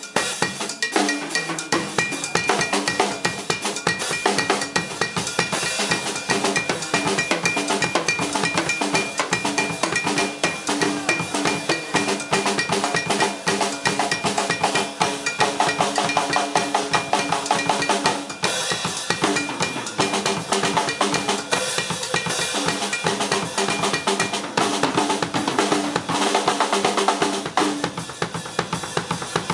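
Drum kit played solo in a fast, continuous stream of strokes, with a cowbell ringing through most of it until a few seconds before the end.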